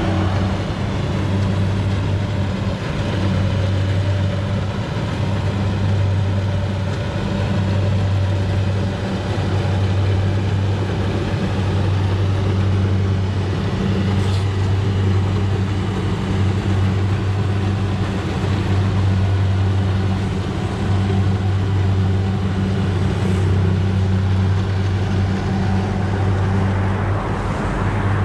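Kubota combine harvester's diesel engine running steadily while harvesting rice, a constant low hum.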